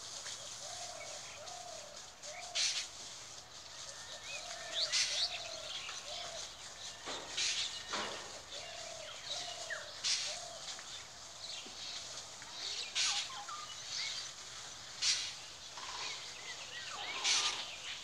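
Mixed birds calling at dawn. A run of low, rising-and-falling notes repeats in short groups, and sharp high chirps break in every two to three seconds.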